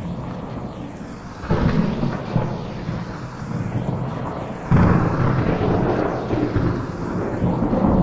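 Heavy thunder rumbling over steady rain, with a sudden peal about a second and a half in and a louder rumble breaking about halfway through.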